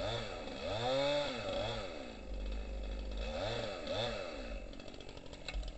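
A small engine revving up and down over and over, each rev a short rise and fall in pitch, with a few faint clicks near the end.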